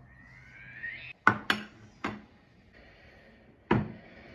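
Serving bowls of ceramic and glass being set down on a table: a short rising scrape, then four sharp clinks and knocks.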